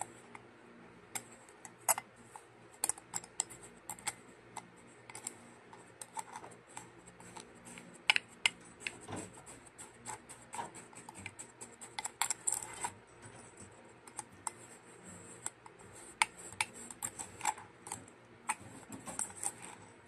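White plastic spoon tapping and scraping against the inside of a glass tumbler as it presses kinetic sand down: an irregular run of sharp clicks with a faint gritty hiss of sand.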